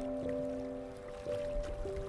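Slow, calm relaxation music: soft held notes that fade slowly, with a new note entering every second or so, over a faint wash of sea water.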